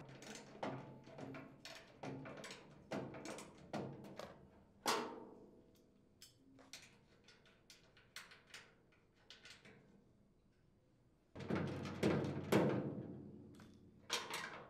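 Clicks and metallic clanks of a wrench and socket working the nuts on a chipper shredder's sheet-metal hopper plate. They come irregularly over the first few seconds and more sparsely after. A louder clank about eleven seconds in rings on for a couple of seconds, and another sharp clank comes near the end.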